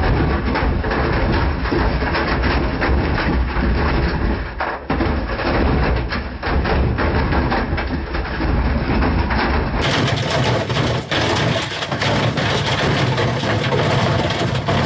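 White Knight tumble dryer running with a hammer and bricks tumbling in the drum: loud, constant clattering and banging over the drum motor's rumble.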